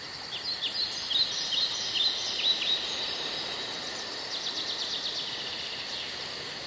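Outdoor nature ambience: an insect pulsing very high at about five beats a second, with birds giving short falling chirps over the first few seconds and a quick run of rapid chirps about four to six seconds in.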